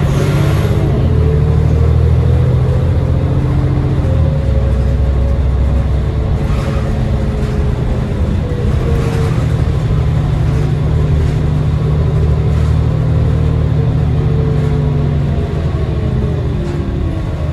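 The 2010 New Flyer D40LF city bus's Cummins ISL 8.9-litre six-cylinder diesel, heard from inside the bus, pulling under load with a steady low rumble. The ZF Ecomat six-speed automatic adds a whine that rises and falls several times as the bus works through the gears.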